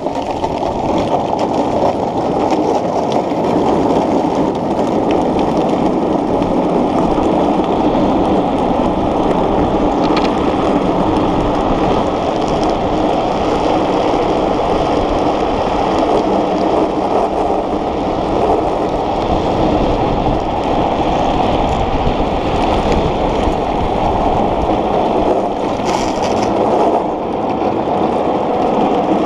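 Steady rush of wind buffeting a helmet-mounted camera and the rumble of small wheels rolling fast on asphalt, as a gravity-powered speed trike descends at speed. A brief sharper hiss comes near the end.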